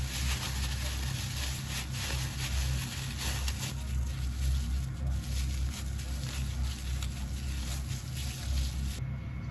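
A plastic food bag crinkling and rustling as a ground-meat batter is squeezed and kneaded in it by hand. The crinkling stops near the end, over a steady low hum.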